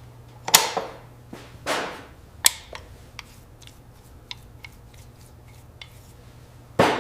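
Workshop handling sounds: a few loud sharp knocks and scattered lighter clicks of tools or parts being set down and worked, over a low steady hum.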